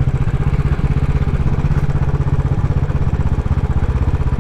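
Royal Enfield Classic 500's single-cylinder engine running at low revs as the motorcycle is ridden on a steep road, with a fast, even thump from the exhaust.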